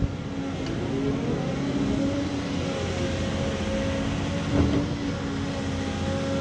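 Diesel engine of a hydraulic excavator running steadily while it digs, its pitch wavering slightly, with a single knock about four and a half seconds in.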